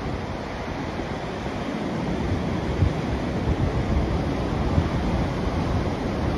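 Large ocean waves breaking and washing over a rock shelf, a steady rushing surf with a low, gusty rumble of wind on the microphone.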